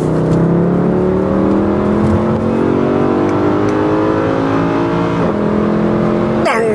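Mercedes C63 AMG's 6.2-litre V8, on its stock exhaust, accelerating hard, heard from inside the cabin. The engine note climbs steadily, then drops about five seconds in, like an upshift, and pulls on.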